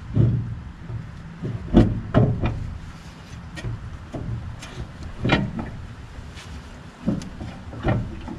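Irregular clunks and knocks of metal engine parts being handled and shifted in a golf cart's engine bay during a mock-up fitting of a Honda GX340 engine. There are several in all, the loudest about two seconds in.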